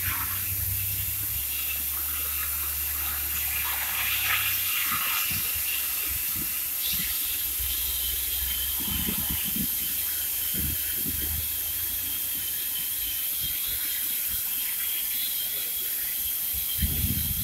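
Steady hissing with a thin, steady high whine that starts about halfway, over a low hum and a few scattered low thumps.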